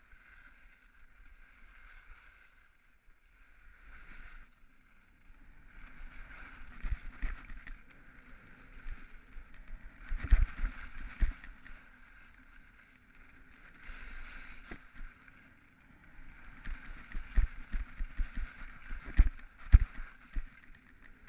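Skis scraping and carving across snow, quiet at first and then swelling and fading with each turn, with sharp low knocks from bumps, the loudest near the end.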